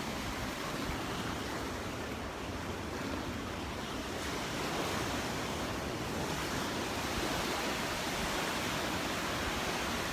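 Gulf of Mexico surf washing onto the beach in a steady rush that swells slightly in the middle, with wind buffeting the microphone.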